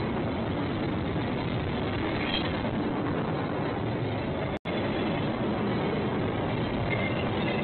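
Freight train rolling past: a steady rumble and rattle of cars on the rails. The sound drops out for an instant about four and a half seconds in.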